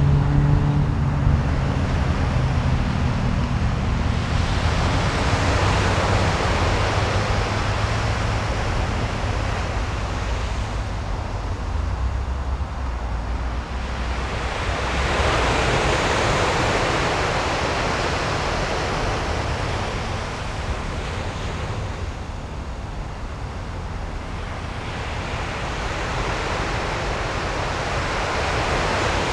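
Sea surf washing ashore: a rushing noise that swells and ebbs roughly every ten seconds, with a low hum underneath in the first dozen seconds.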